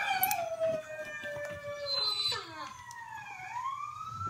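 Recorded howling played back through a phone's small speaker: several long, overlapping howls that glide slowly down in pitch and then back up.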